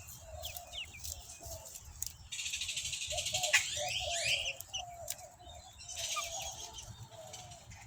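Backyard hens clucking softly while they feed, with wild birds chirping behind them. A high, rapid trill comes in about two seconds in and again near the end, with a few quick rising and falling chirps in the middle.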